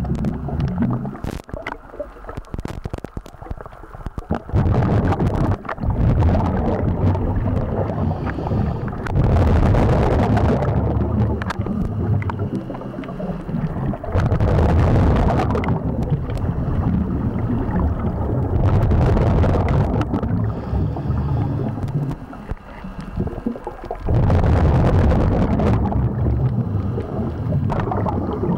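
Scuba diver's exhaled bubbles from a regulator, recorded underwater: noisy bubbling bursts about every four to five seconds, each lasting a couple of seconds, with quieter gaps between for the inhalations.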